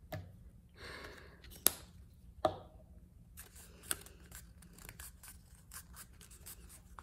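Paper crinkling and rustling as hands squeeze a rolled paper tube closed to hold a glued seam, with two sharp taps in the first few seconds.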